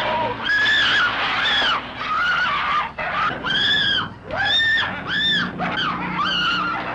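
A woman screaming again and again, each shrill scream rising and falling, over a low steady hum.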